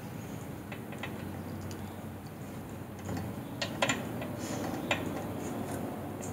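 Scattered small clicks and ticks of plastic twist-on wire connectors being screwed by hand onto electrical wires, with a few sharper ticks about the middle.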